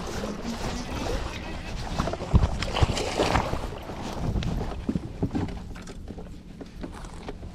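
Water splashing and irregular knocks on and around a fishing kayak, loudest a couple of seconds in.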